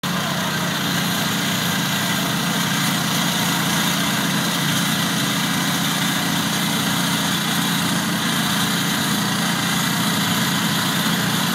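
Engine of a lifted Bolens garden tractor on oversized mud tires running steadily at low revs as it creeps into a mud hole.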